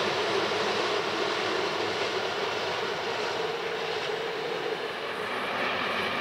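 Diesel trains heard from a distance: a steady rumble as a diesel railcar runs away. Near the end a faint steady hum comes in as a Brejlovec diesel locomotive approaches.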